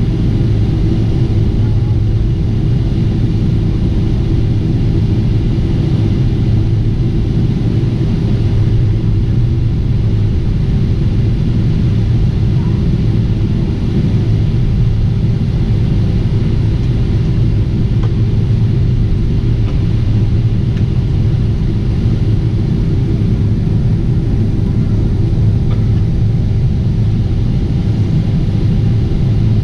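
Steady in-flight rumble of a Boeing 747-8 with its GEnx engines, a continuous deep engine and airflow roar with a constant hum above it, unchanging throughout.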